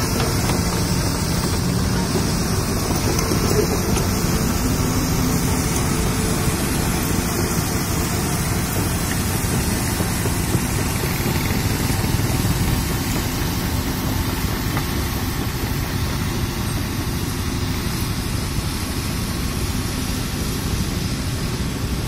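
Hitachi Zaxis 210 crawler excavator's diesel engine running steadily as the machine works and moves over a bed of crushed rock. The sound grows slightly fainter as the excavator draws away.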